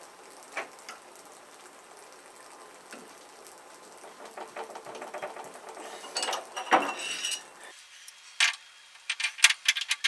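Metal clinking and scraping of a heating-element socket wrench being fitted and worked on the lower element of an electric water heater. It is a scatter of sharp clicks starting about four seconds in, loudest near seven seconds and again in the last two seconds.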